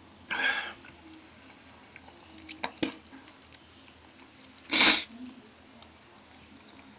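A person retching over a toilet while vomiting: a short retch about half a second in, a few small clicks, and a sharp, louder retch about five seconds in.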